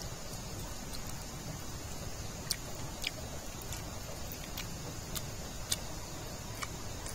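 Steady rushing outdoor background noise with scattered sharp clicks, irregular and roughly one or two a second, the loudest a little after the middle.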